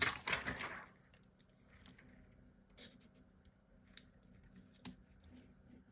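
Paper craft pieces being handled: a short rustling scrape in the first second, then a few faint light clicks and taps.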